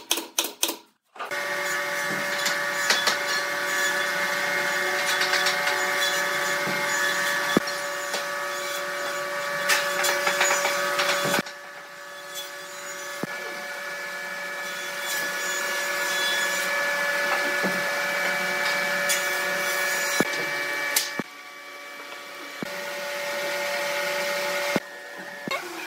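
A pneumatic nail gun fires several quick shots into pine, then a workshop power tool runs steadily through the rest, with a sawing sound.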